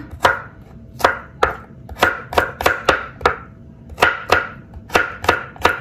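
Kitchen knife slicing garlic cloves on a wooden cutting board: about fourteen sharp knocks of the blade on the board, coming unevenly in quick runs of two to four.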